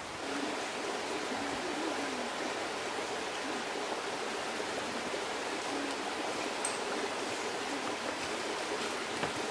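A forest stream running steadily over rocks, an even wash of water noise.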